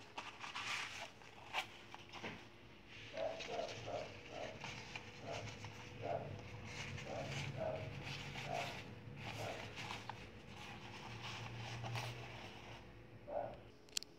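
Thin, slick bag fabric rustling and crinkling in irregular bursts as it is folded by hand and pressed flat into a zip-around wallet case.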